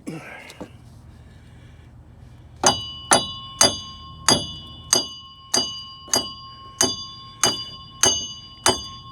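Hammer striking a seized steel bolt in a steady series of light blows, about two a second, starting about two and a half seconds in. Each blow leaves a bright metallic ring. The blows are kept gentle to free the bolt without damaging its threads.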